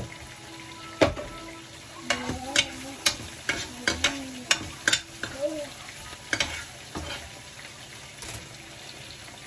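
Steak sizzling steadily in a hot grill pan, with irregular clinks and scrapes of a metal spoon against the pan from about a second in through the middle.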